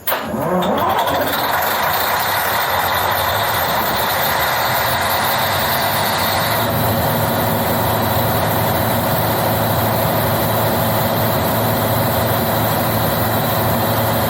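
Simulated marine diesel generator engine starting, its pitch rising over the first second, then running steadily; about halfway through its sound shifts, with the low drone growing stronger and the high hiss easing.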